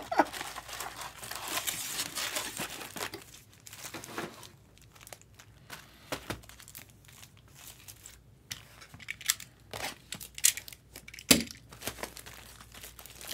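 Crinkling and tearing of trading-card packaging as boxes and packs are opened by hand, with irregular crackles and one sharper knock near the end.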